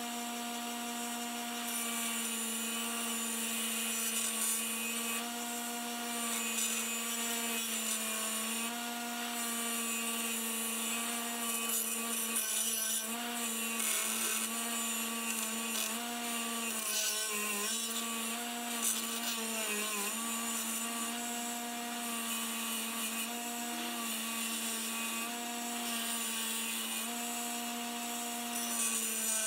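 Bench grinder motor humming steadily while a rusty steel hammer head is held against its spinning wheel, with a steady high hiss of the rust being scoured off. The hum sags in pitch briefly a few times about two-thirds of the way through as the head is pressed harder.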